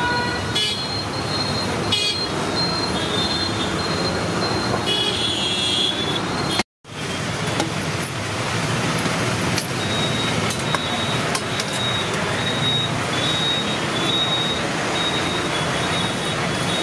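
Steady roadside traffic noise with a few short vehicle horn toots; the sound drops out for a moment about seven seconds in.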